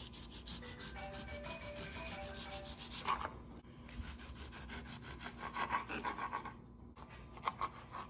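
Long kitchen knife sawing through lemons on a plastic cutting board: repeated back-and-forth rubbing strokes of the blade through peel and flesh, scraping on the board, in several spells.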